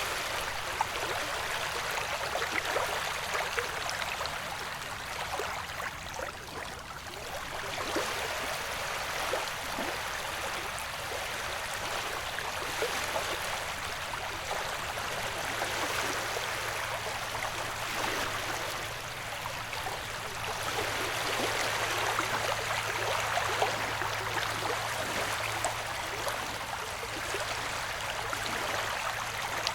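Ocean-wave ambience used as white noise: a continuous wash of water that slowly swells and eases. A faint steady low hum comes in about halfway.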